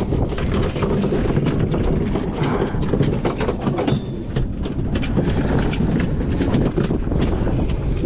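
Wind buffeting the microphone in a steady, rough rumble, with many small clicks and knocks scattered over it.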